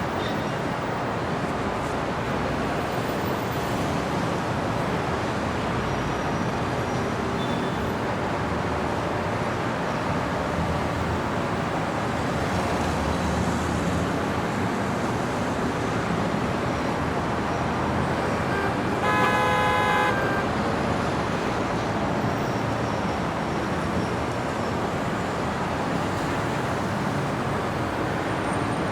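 Steady city street traffic noise from passing cars. A car horn honks once for about a second, around two-thirds of the way through.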